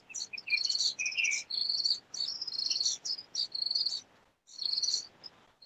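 Crickets chirping in high, pulsing trills that come in short phrases with brief pauses.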